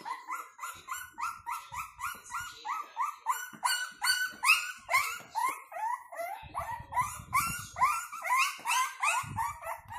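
A young Frenchton (Boston terrier × French bulldog) puppy crying in a fast string of short, high, rising yelps and whines, about four a second without a break.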